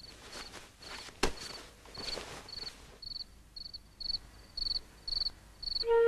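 Cricket chirping steadily, about two short high chirps a second, as a night-time sound effect. A single sharp click sounds just over a second in, and soft rustling can be heard in the first half.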